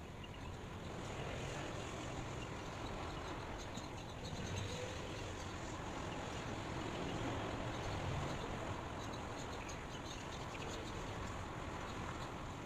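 Steady rushing noise that swells and eases gently every few seconds, with a few faint high chirps over it.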